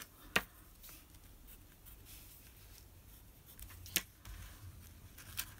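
Quiet handling of a paper card and a pencil on a craft mat: faint rustle and sliding, with a light click about half a second in and a sharper click about four seconds in.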